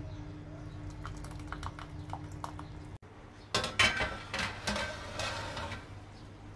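A wooden spoon stirs thick tomato sauce in a pot, with small soft clicks over a steady hum. After a cut, a metal baking tray and wire oven rack clatter and scrape in several sharp knocks. The clatter is the loudest sound and dies away near the end.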